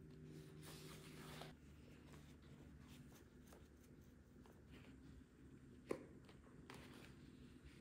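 Faint rubbing and scratching of leather being handled and pressed onto a steering wheel rim, over a low steady hum. A single short, sharp click about six seconds in.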